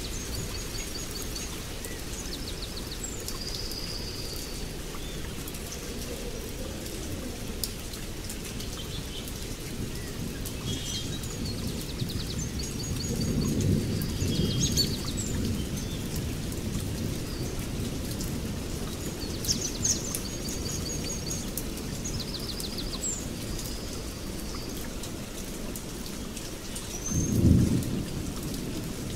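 Steady rain falling, with thunder rumbling low about halfway through and a louder, shorter thunder rumble near the end. Short, high bird chirps and trills sound now and then over the rain.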